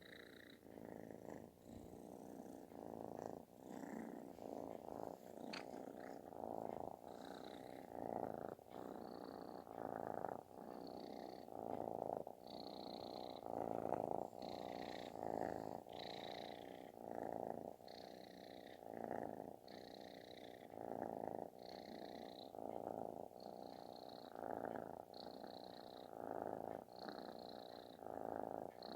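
Calico kitten purring with a snore-like rasp, the purr swelling and fading about once a second with each breath.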